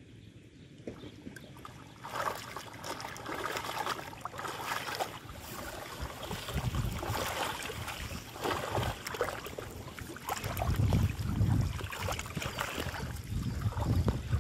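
Water splashing and sloshing in irregular bursts, starting about two seconds in, with heavier low splashes near the end.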